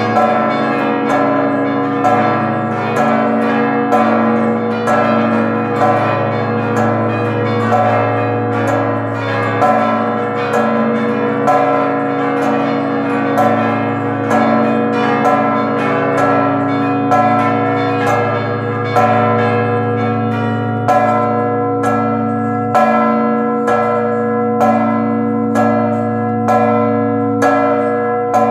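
Festive ringing of a seven-bell church ring, tuned from a low B up to E-flat, for the Christmas Forty Hours devotion. Strokes follow each other quickly, their ringing tones overlapping into a continuous hum; about twenty seconds in the strokes fall into a more even, distinct rhythm.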